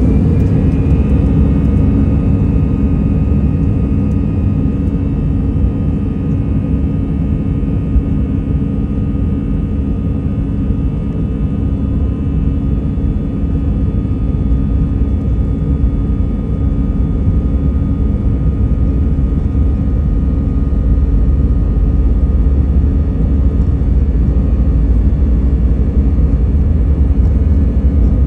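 Airbus A320's twin turbofan engines spooling up to takeoff thrust, heard from inside the cabin over the wing: a rising whine that levels off about a second in, then a steady high whine over a heavy rumble that swells slightly as the airliner accelerates down the runway.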